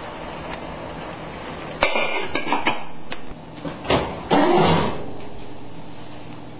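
Oven door opened and the oven rack pulled out on a home gas range: a string of sharp metal clanks and clicks, then a louder, longer scraping rush about two-thirds of the way through, over a steady low hum.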